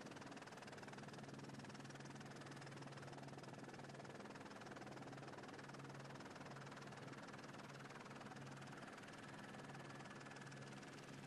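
Faint, steady rushing of a muddy flash flood pouring through a desert wash, with a low steady hum underneath.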